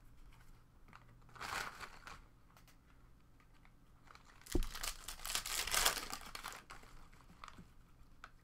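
Foil wrappers of 2017 Panini Prizm football card packs crinkling and tearing as a pack is handled and opened. A short rustle comes about a second and a half in, then a thump and about two seconds of loud crinkling in the middle.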